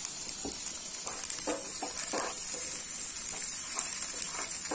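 A perforated steel spatula scraping and stirring chicken curry in an iron kadai, in irregular strokes starting about half a second in, over a steady sizzle of the curry as water is added.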